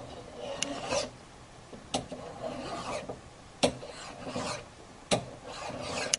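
Hand file rasping across the end of a metal strip clamped in a jeweler's miter jig vise, filing it flat against the jig: about four strokes, each opening with a sharp click.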